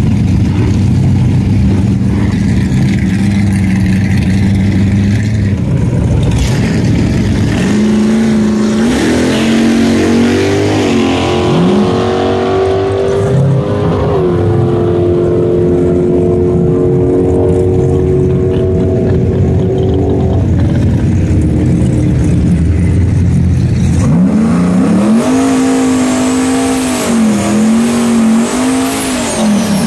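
Turbocharged Chevy LS V8 in a GMC Sonoma pickup doing a burnout, its rear tyres spinning and smoking. The engine runs steadily at first and revs up about eight seconds in. It holds high revs for several seconds, drops back around twenty seconds, then revs again near the end with a wavering pitch.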